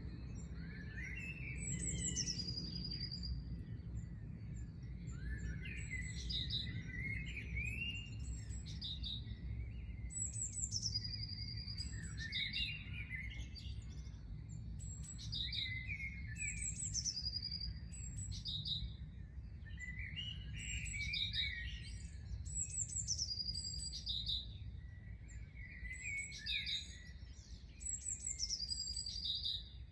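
Songbirds chirping and singing, with one bird repeating a high phrase of notes stepping down in pitch every few seconds and others adding lower chirps. A steady low rumble runs underneath.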